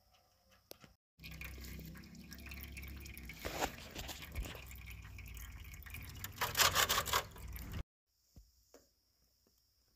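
Engine oil draining into an aluminium foil pan: a thin stream trickles and drips, with clicks and handling noise. The sound starts abruptly about a second in and cuts off abruptly about two seconds before the end, with a louder cluster of clicks just before the cut-off.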